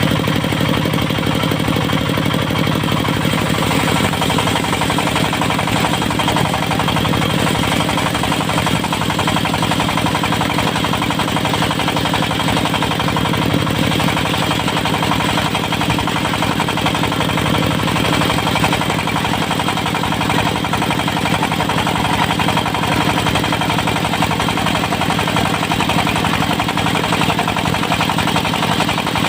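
Diesel engine driving a portable circular-saw mill, running steadily with a rapid, even beat.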